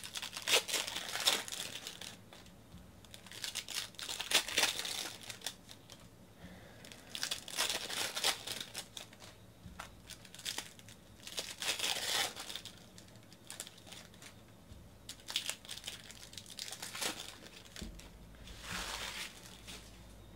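Foil trading-card pack wrappers being opened and crinkled by hand, in short bursts of crinkling every few seconds with quieter gaps between.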